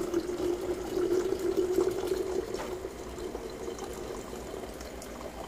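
Mint and cucumber water pouring in a thin stream into a glass pitcher already partly full, making a hollow filling sound. After about two and a half seconds it tapers to a light trickle and drips through a strainer.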